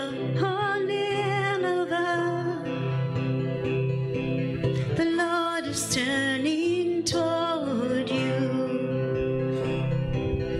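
A solo singer performing a worship song about Jonah to instrumental accompaniment, holding long notes with vibrato.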